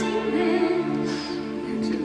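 Live orchestra with strings playing held chords.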